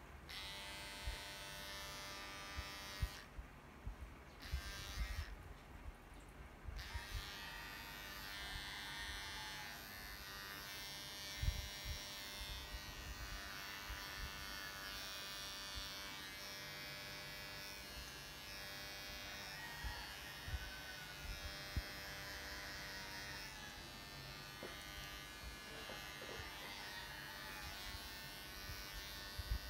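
Electric pet grooming clippers buzzing steadily on a Shih Tzu's coat, with occasional low knocks.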